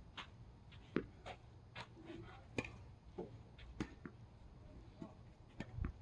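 Faint, sharp taps and knocks on a tennis court between points, about ten at irregular spacing, over a low steady rumble of wind on the microphone.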